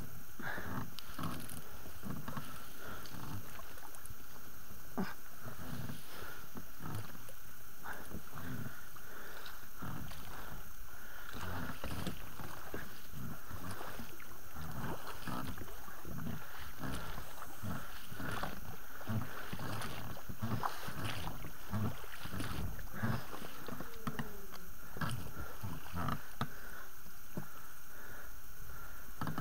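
Inflatable rubber boat being rowed and pulled by hand through shallow, weedy marsh water: repeated splashes and low knocks, about one or two a second, against the rubber hull.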